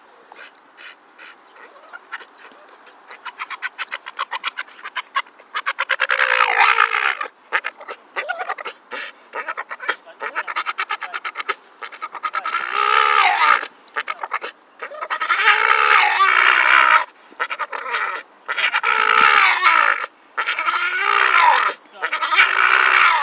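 Staffordshire bull terrier making a weird vocal noise. It starts as a quick run of short pulses that speeds up and grows louder, then turns into a string of loud drawn-out bursts, each a second or two long and wavering in pitch, with short breaks between them.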